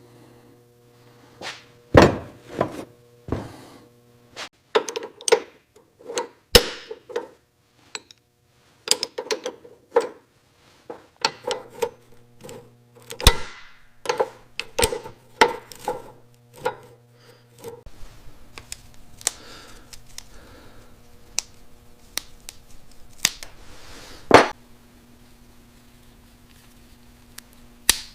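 Workshop tool sounds: an irregular run of sharp knocks and clinks, with the loudest strikes about two seconds in, near the middle and near the end. A faint steady hum runs underneath.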